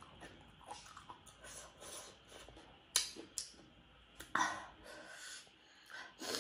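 Close-up eating sounds: chewing and sharp, hissing breaths through the mouth, the heat of dalle chilli making her gasp. A sharp click about three seconds in and another just after.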